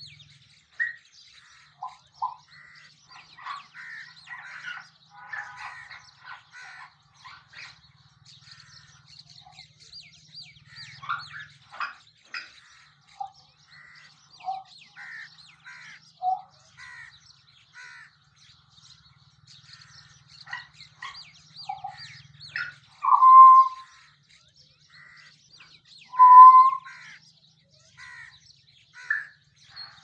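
Forest birds calling and chirping in many quick, short notes, with two louder, longer calls a few seconds apart late on.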